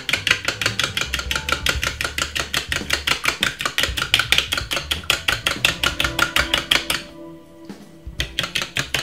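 Metal fork beating an egg with a splash of milk in a small clear bowl: fast, even clicking strokes, about seven a second. The beating stops for about a second around seven seconds in, then starts again.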